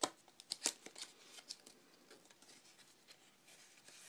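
Baseball trading cards being handled, with a few faint, short rustles and clicks in the first two seconds, then almost nothing.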